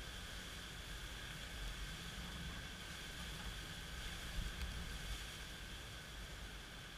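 Strong, gusty wind and steady rain of an approaching hurricane, with the wind buffeting the microphone as a low rumble. There is a single light tap a little past the middle.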